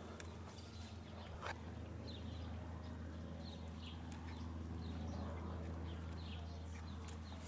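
A horse's hooves moving in the soft dirt of a round pen, a couple of sharp hoof thuds in the first two seconds, over a steady low hum.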